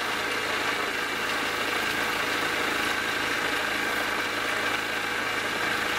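Small motorboat's engine running at steady speed while the boat is under way, with a steady rushing noise over it.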